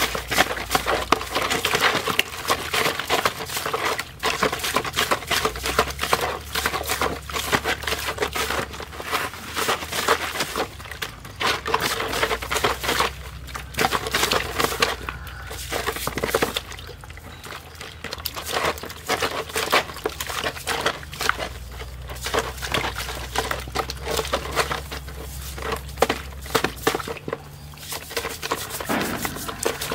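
Hands scrubbing and rubbing a snake carcass in a plastic basin of water, with constant splashing, sloshing and wet slapping. The noise eases briefly a little past the middle.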